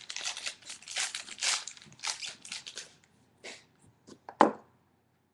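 Rustling and crinkling of wrapping as a trading-card booklet is unwrapped by hand, for about three seconds. Then a few light clicks and taps as the card is handled, the sharpest about four and a half seconds in.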